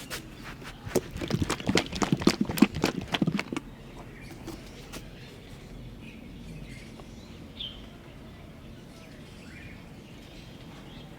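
Hands patting and tapping rapidly on skin during a face and head massage: a quick run of taps for about two and a half seconds, then it goes quieter. Faint bird chirps follow.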